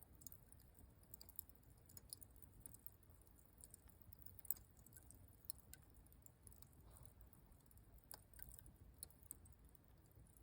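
Near silence with faint, irregular crackling clicks scattered throughout.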